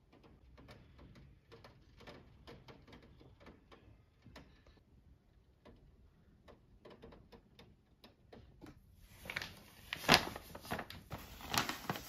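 Raindrops tapping on a window pane in light, irregular ticks. About nine seconds in, this gives way to louder crinkling of a stiff paper shopping bag being handled.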